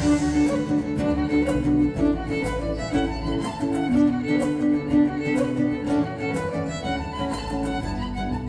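Instrumental break by a small acoustic band: violin carries a sustained melody over guitar, bass and light percussion, with no singing.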